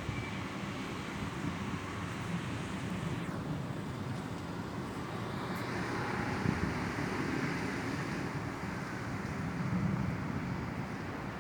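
Steady outdoor rush of wind and city traffic during a storm, swelling for a few seconds about halfway through.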